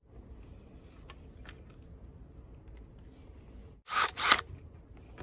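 Cordless drill-driver run in two short bursts about four seconds in, driving in a screw. Before it, a few faint handling clicks.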